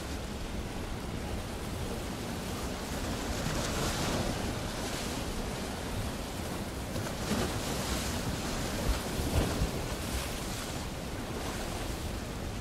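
Ocean surf, waves washing in and out, the wash swelling several times.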